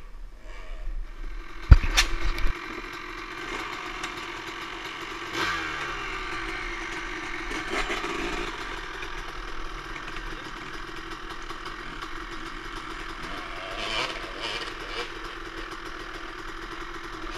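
Dirt bike engine running steadily, with a loud knock about two seconds in.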